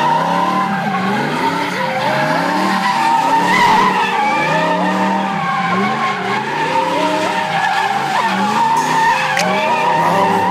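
A car doing donuts: the engine revs up and falls back again and again while the tyres squeal steadily as they spin and slide on the pavement.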